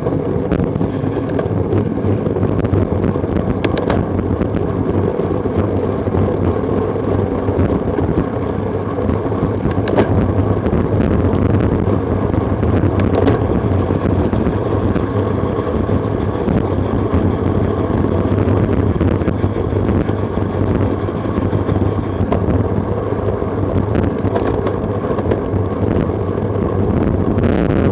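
Steady rush of wind and tyre-on-road noise on a bicycle-mounted Garmin VIRB action camera's microphone while riding at speed, with a few light clicks.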